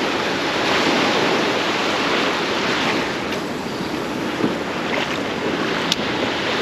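Ocean surf washing steadily on a beach, with some wind on the microphone.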